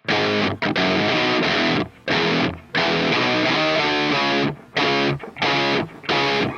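Background rock music: electric guitar chords played in stop-start phrases, cut by short breaks.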